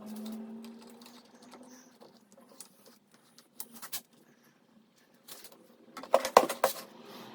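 Light taps and clicks of an MDF board and hand tools being handled, with a quick cluster of louder knocks about six seconds in.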